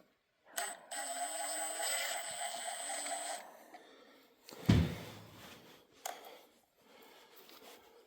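A tool runs for about three seconds with a steady high whine and stops suddenly, then a single heavy thump of metal follows, with a few light clicks after it.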